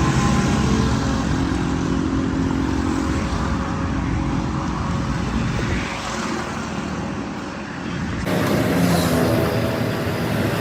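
A vehicle engine running steadily. The sound changes abruptly about eight seconds in, to a lighter engine-and-traffic sound.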